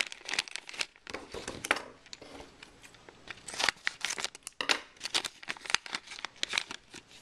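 Plastic Mega Bloks blind bag being torn open and crinkled in the fingers: an irregular run of crackles and rustles.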